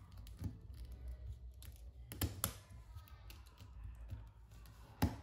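Plastic puzzle-cube pieces clicking and knocking as they are handled and pressed into a cube, with a pair of sharper clicks about two seconds in and the loudest click near the end.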